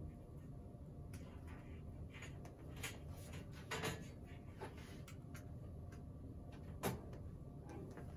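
A handful of faint clicks and knocks from hands handling small hardware at a wall, over a steady low hum; the sharpest knock comes about seven seconds in.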